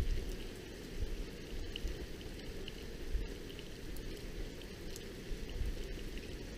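Thunderstorm rain falling steadily, with irregular low rumbles every second or two.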